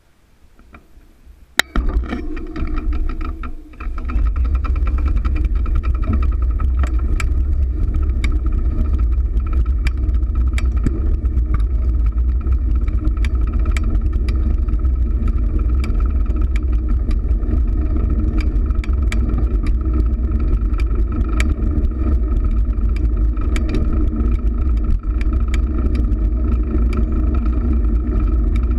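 Riding noise from a fixed-gear bicycle picked up by a camera mounted on the bike: heavy wind and road rumble with steady hum from the moving bike, dotted with frequent sharp ticks and knocks. It starts suddenly about two seconds in and stays loud and steady after.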